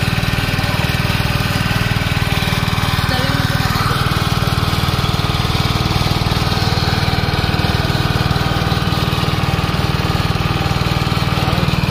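Wooden passenger boat's engine running steadily under way, an even, unchanging mechanical drone.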